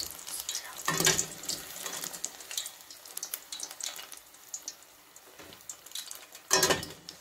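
Brinjal pieces deep-frying in hot oil in a steel kadai: a steady crackling sizzle, with a steel skimmer scraping and knocking against the pan about a second in and again near the end.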